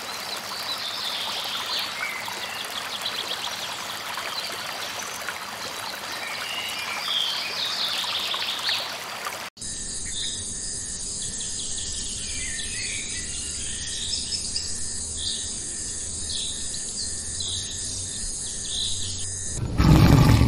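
Forest stream running over rocks with birds chirping. After an abrupt cut, high chirps repeat about once a second over a calmer background. Near the end, a tiger roars, loud and low.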